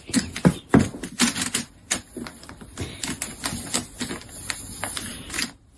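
A quick, irregular run of sharp clicks and taps, several a second, loudest in the first second or so.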